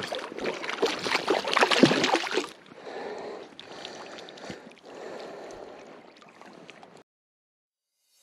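A hooked brown trout splashing and thrashing at the water's surface for the first two and a half seconds, followed by quieter river water sounds. The sound cuts off to silence about seven seconds in.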